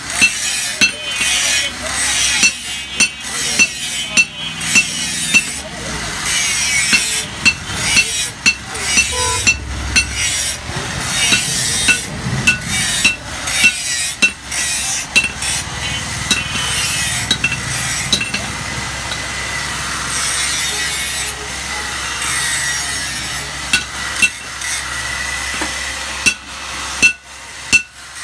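Hand hammer striking a steel cleaver blade on an anvil, blow after blow about once or twice a second, with fewer blows for a stretch past the middle, over a steady background noise.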